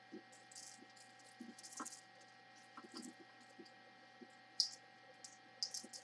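Faint handling sounds of diamond-painting drills being poured from a small plastic bag onto a plastic drill tray: soft rustling of the bag and a dryer sheet, with a few light ticks as the resin drills land.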